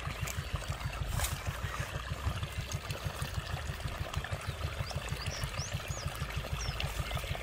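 Water running from a hose into a flooded armadillo burrow, splashing and gurgling at the mouth of the hole. A low, rapid, even throbbing runs underneath it.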